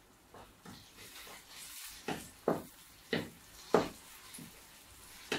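A wooden spoon mixing salad in a bowl: a string of soft knocks and scrapes, one roughly every half second to second, becoming more distinct about two seconds in.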